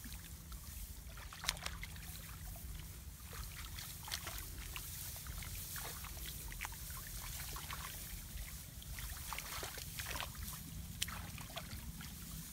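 Hands groping and sloshing in shallow muddy paddy water among rice stalks, making small scattered splashes and trickles over a steady low rumble.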